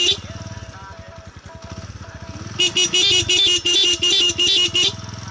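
Motorcycle horn blown in a rapid string of about eight short, high-pitched blasts lasting about two seconds, starting a little past halfway, after the tail end of an earlier blast at the very start. The motorcycle's engine idles steadily underneath.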